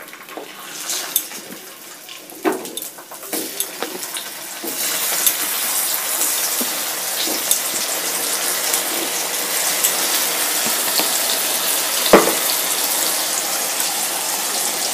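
Raw pieces of arbi (taro root) going into hot mustard oil in a nonstick pan, with scattered knocks as they land. From about five seconds in, a steady sizzle of frying holds, and there is one louder knock later on.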